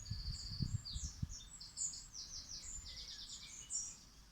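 Several small songbirds singing, with rapid repeated trills and chirps overlapping throughout, and a few low thumps in the first second or so.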